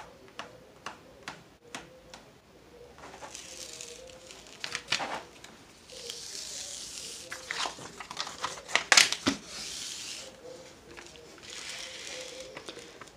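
Rustling and crackling of a large diamond painting canvas and its plastic-feeling protective cover sheet as it is pulled back and smoothed by hand. It comes in several long swishes with sharp crackles, loudest about nine seconds in.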